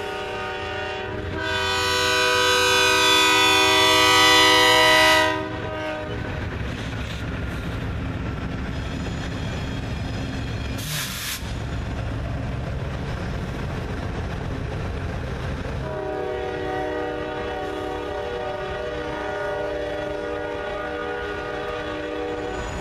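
A diesel locomotive horn sounds a long chord that swells loudest from about a second and a half in and stops about five seconds in, over the rumble and wheel clatter of a passing freight train led by BNSF locomotive 4189. The rumble and clatter go on, with a brief sharp noise about eleven seconds in, and the horn sounds again, softer, from about sixteen seconds in.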